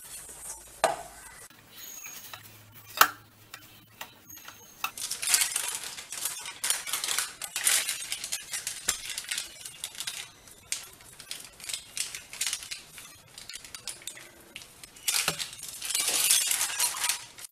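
Hands working dough in a stainless steel bowl, with a few sharp knocks against the bowl. Then a plastic sheet crinkles and rustles on and off as dough is patted flat on it, loudest near the end.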